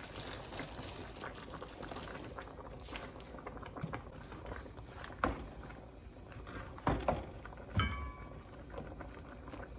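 A pot of okra soup simmering, with a steady crackle of small bubbles popping, and a few sharp knocks of a utensil against the pot, one near the end briefly ringing.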